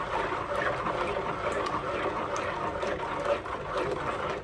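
A ladle stirring thick homemade soap batter in a bowl: steady wet sloshing with light clicks of the ladle against the bowl. The batter is frying oil, lye and salt being worked towards its setting point.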